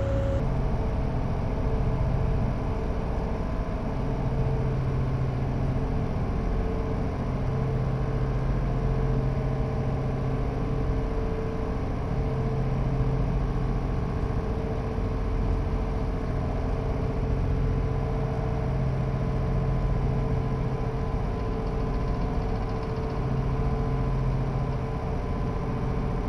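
Diesel engines of a 56-foot motor yacht running steadily at cruising speed: a constant drone with an even low hum, heard from inside the enclosed helm.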